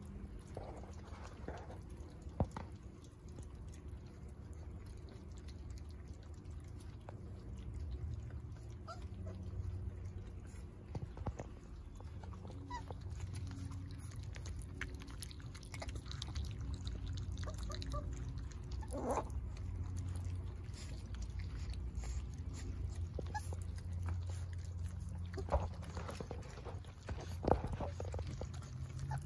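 Four-week-old puppies eating raw meat, with wet chewing and small clicks and a few short squeaks and whimpers now and then.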